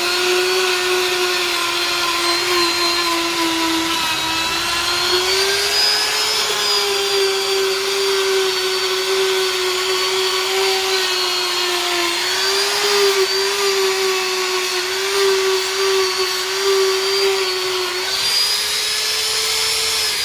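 Handheld rotary buffer spinning an abrasive bit against the rubber inner liner of a car tyre: a steady high whine whose pitch sags and recovers slightly as the bit is pressed in. It is buffing the liner around the cut to roughen it for a vulcanized patch.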